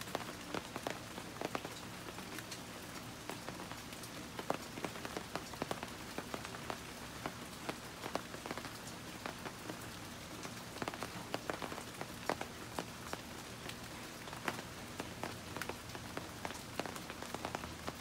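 Steady rainfall: an even hiss with many irregular, sharp drop taps.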